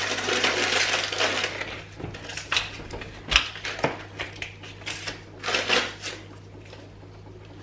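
Crinkling and rustling of packaging, then a few sharp clicks and knocks, as a battery is swapped in kitchen scales.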